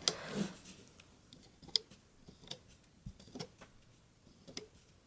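Faint, irregular small clicks and taps as rubber loom bands are stretched and slipped onto the plastic pegs of a Rainbow Loom.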